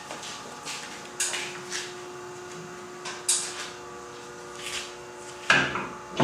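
Scattered clicks and knocks from a manual screen-printing press and its wooden screen frame being handled, the loudest a clunk about five and a half seconds in.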